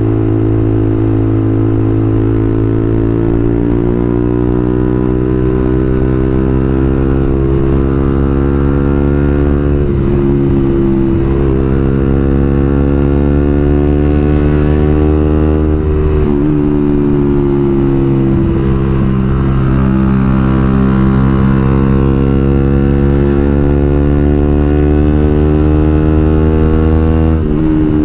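Suzuki GSX-R150's single-cylinder engine heard through a WRX New GP K2 aftermarket racing exhaust while riding. The note climbs steadily as it pulls through each gear, then drops sharply at each shift, about three times.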